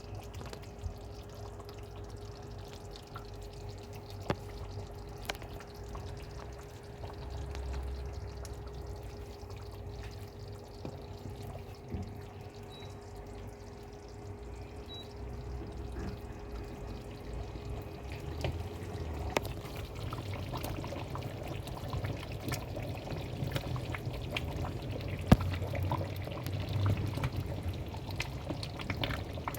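Fish stew being stirred in a pot, the liquid sloshing, with scattered knocks and scrapes of the spoon against the pot. A steady low hum runs underneath.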